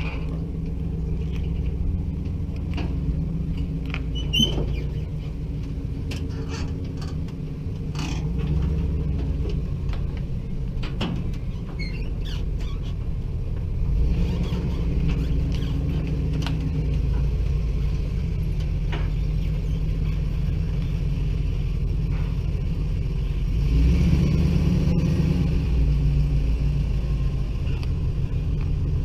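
Pickup truck engine running at low speed as it moves slowly while towing a car trailer, with a low, steady rumble that swells for a few seconds about three-quarters of the way in. A few short clicks and knocks are heard in the first half.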